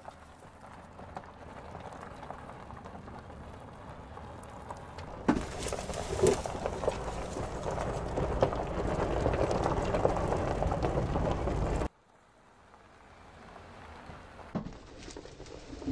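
Tyre and road noise of a camouflaged Lamborghini Urus test car driving over rough test-track surfaces, with scattered knocks and crunches. It is loudest from about five seconds in, cuts off suddenly about twelve seconds in, and comes back quieter.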